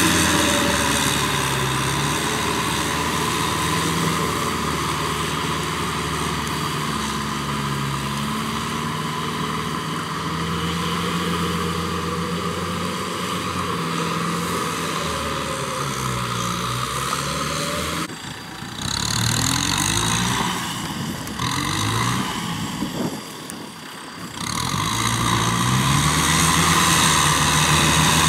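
Kubota M6040SU tractor's diesel engine running under load while pulling a Maschio rotary tiller through wet paddy soil, its pitch rising and falling several times. About two-thirds of the way through, the sound briefly drops away twice before the engine comes back up.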